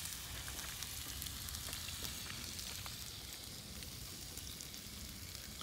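Sliced peppers and onions sizzling steadily in a cast iron pan over fire pit embers, a constant hiss with fine crackles throughout.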